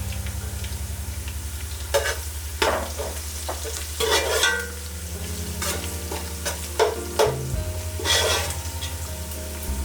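A spoon stirring and scraping through food frying in a pan, in about eight irregular strokes over a steady sizzle.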